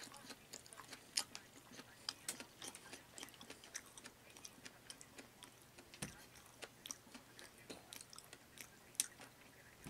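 A person chewing food close to the microphone: faint, irregular wet mouth clicks and smacks, a few of them louder.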